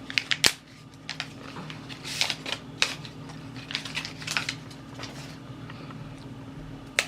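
Scattered clicks and taps of chopsticks and a plastic container being handled at the table, thinning out after about five seconds, over a steady low hum.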